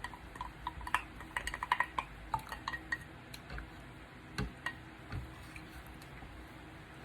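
Spoon clinking and scraping against a bowl in light, irregular taps with a short ring, as gelatin is mixed into sweetened water for jelly.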